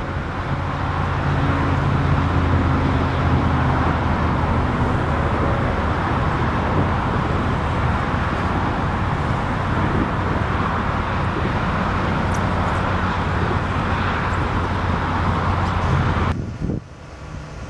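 A car running, its steady low engine hum under a constant rush of road and wind noise. The sound drops off suddenly near the end.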